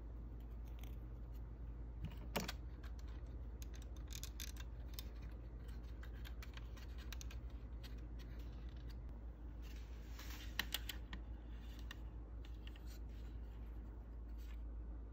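Light clicks, taps and scratches of fingers handling a plastic model car body and pressing a thin metal strip into place, with a sharper click about two seconds in and a cluster of clicks a little past the middle, over a steady low hum.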